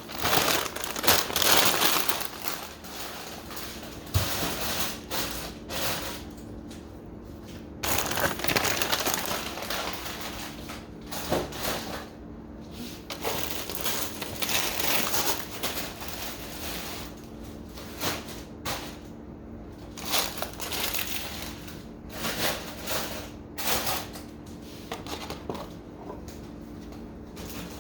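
Plastic bags and frozen food packages crinkling and rustling, with irregular knocks, as frozen items are packed back into a freezer. A steady low hum runs underneath.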